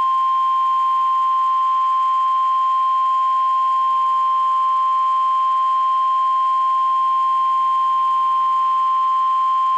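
NOAA Weather Radio warning alarm tone, a single steady 1050 Hz pitch held loud for about ten seconds and cutting off sharply near the end. It is the alert that tells receivers and listeners a warning broadcast follows, here a tornado warning.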